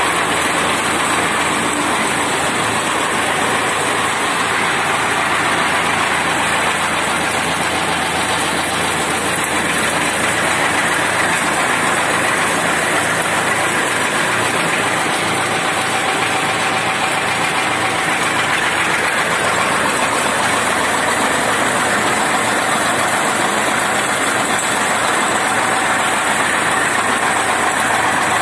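Tractor engine running steadily and driving a PTO-powered chaff cutter. The cutter's blades and blower make a loud, even mechanical noise that does not change as fodder is fed in.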